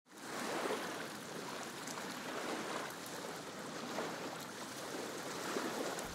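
Steady rushing water ambience, like surf or a stream, with no bass or beat; it fades in quickly at the start.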